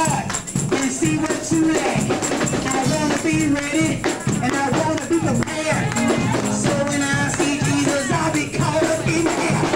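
Gospel praise music: voices singing over a steady tambourine beat.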